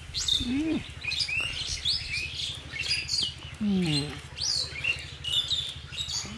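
Small birds chirping and calling over and over, with a few short low voice sounds and a steady low hum underneath.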